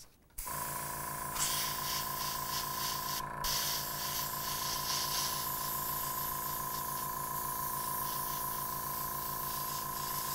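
The JULIA airbrush compressor kicks on about half a second in and runs with a steady motor hum. About a second later the airbrush starts spraying with a hiss of air, its air-control valve opened up for thicker metallic coloring; the hiss cuts out briefly once, a few seconds in.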